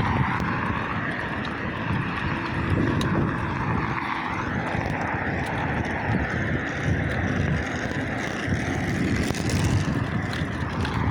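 Steady rush of wind on the microphone with road rumble from riding a bicycle.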